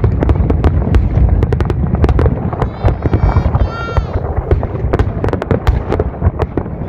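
Aerial fireworks bursting in quick succession: rapid bangs and crackling pops over a continuous low rumble. A high wavering tone sounds for about a second around three seconds in.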